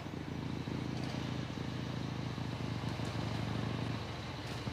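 Motorcycle with a sidecar, its engine running steadily as it rides across the lot; the low engine note eases off a little near the end.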